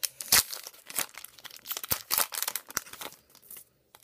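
Trading-card pack wrapper being torn open and crinkled in the hands: a run of crackling, tearing rustles that dies away near the end.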